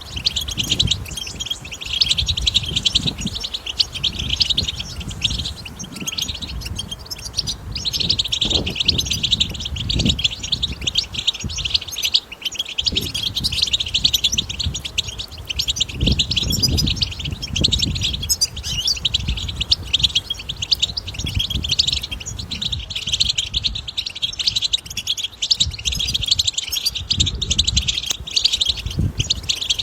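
European goldfinch song: a dense, continuous twittering chatter of quick notes and trills, the wild 'babtaba' song used to stimulate caged goldfinches to sing. Irregular low rumbles run underneath.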